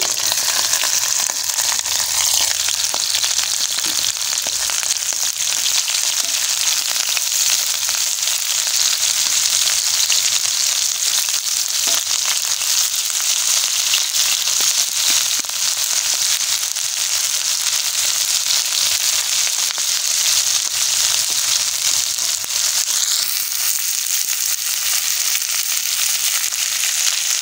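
Sliced red onions and pre-cooked goat meat frying in hot oil in a pot: a steady, high hiss of sizzling with fine crackling throughout.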